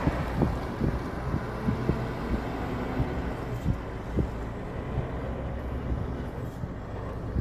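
Low, steady rumble of a heavy truck's engine, the Scania R540's V8 diesel, pulling away with a loaded hooklift container and trailer, heard from inside a car. Scattered short thumps run through it.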